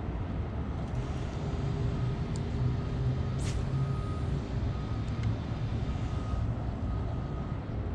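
Steady low rumble of a vehicle engine, with a sharp hiss about three and a half seconds in and a faint high tone beeping on and off through the second half.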